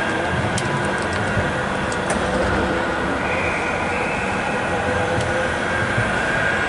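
Manchester Metrolink M5000 tram running past: a steady low rumble with a high steady whine, joined by a second, higher tone about three seconds in, and a few faint ticks.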